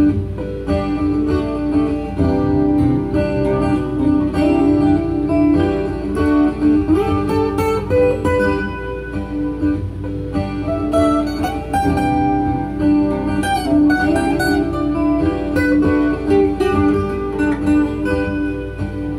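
Acoustic guitar played live through a loop pedal: layered, repeating guitar parts under picked melody notes, with a few notes gliding in pitch about halfway through.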